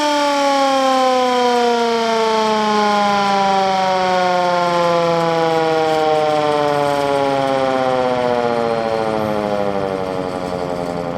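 Hand-cranked emergency siren winding down: its wail falls steadily in pitch as the rotor slows, getting slightly quieter and wavering a little near the end.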